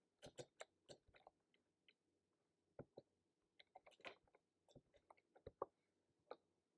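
Slow, irregular typing on a keyboard: scattered light key clicks, some in quick pairs, with pauses between.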